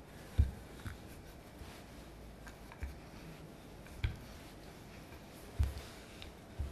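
Wooden rolling pin rolling out margarine shortcrust pastry dough on a floured silicone mat: faint, with a handful of soft, dull thumps at uneven intervals as the pin is pushed and pressed.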